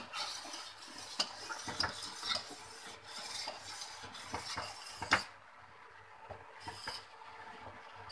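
Metal ladle stirring and scraping thickening milk in a steel pan, with repeated sharp clinks of metal on metal, the loudest about five seconds in, after which the stirring is quieter. The milk is being reduced on the heat and stirred constantly so it does not stick.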